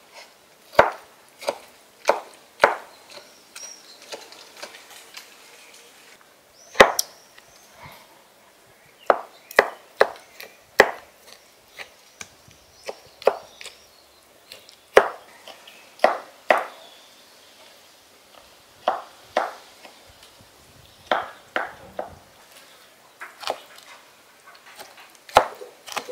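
Kitchen knife cutting peeled tomatoes on a wooden cutting board: irregular sharp knocks as the blade strikes the board, often two or three in quick succession, with short pauses between.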